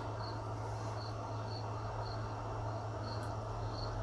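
A cricket chirping steadily, short regular chirps about one and a half a second, over a steady low hum.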